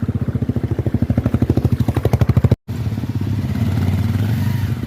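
Single-cylinder motorcycle engine running at low revs, with rapid, even firing pulses. It breaks off for an instant just past halfway, then carries on more smoothly.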